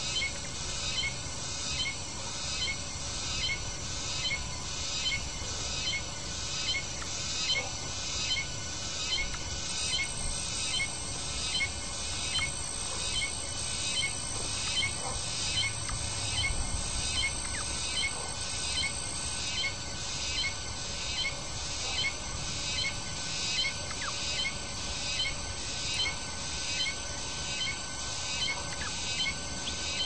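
A small songbird chirping over and over at a steady pace, about one and a half chirps a second, with no break.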